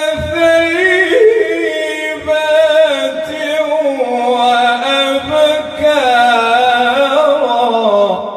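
A male reciter chanting the Quran in a slow, melodic tajweed style, drawing the words 'sa'ihat' and 'thayyibat' out into long held, ornamented notes. The pitch slides downward near the end, and the voice trails off in an echo.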